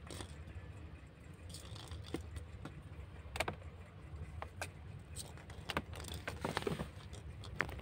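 Kittens scuffling on a tiled floor with a small plastic ball: scattered light clicks and taps at irregular intervals from paws, claws and the ball, over a low steady hum.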